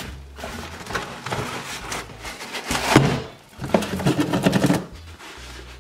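Cardboard packaging handled by hand: box flaps and a loose cardboard sheet scraping and rustling, with a louder knock about three seconds in.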